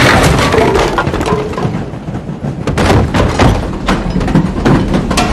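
A fight crashing through wooden panelling: repeated hard impacts, with wood cracking and splintering and some glass breaking.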